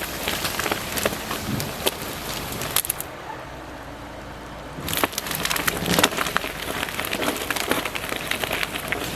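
Brush and branches crackling and snapping as a log is dragged through the woods by the yarding line. The snapping briefly dies down about three seconds in, then picks up again.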